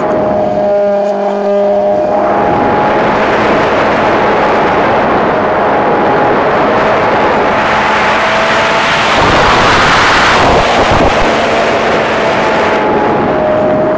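Multiplex EasyStar RC plane heard from onboard: the steady whine of its electric pusher motor and propeller under loud wind rush over the airframe and microphone. The wind thins briefly about a second in, leaving the motor tones clear, then swells loudest around ten seconds in as the plane swoops low over a field.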